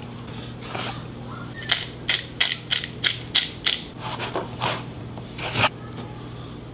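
A kitchen knife knocking on a plastic cutting board: a quick run of sharp clicks, about three a second, then a few fainter ones and one last knock near the end. A low steady hum runs underneath.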